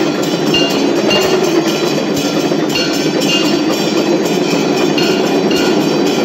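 Temple bells clanging in a fast, steady rhythm, about three strikes a second, over a loud, dense clattering din: the ringing that accompanies a Hindu aarti.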